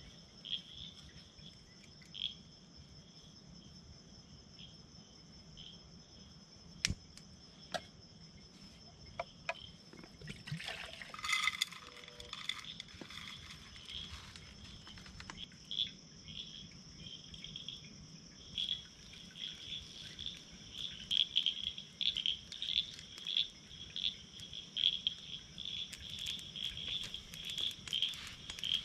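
Evening chorus of insects: a steady high drone with rapid, pulsing chirps that grow louder and denser after about halfway. A few clicks and a short clatter of small cooking gear come near the middle, and sharp ticks near the end.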